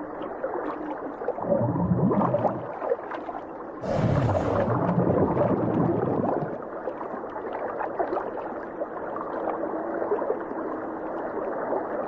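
Muffled underwater bubbling and gurgling, with a short, louder hiss about four seconds in.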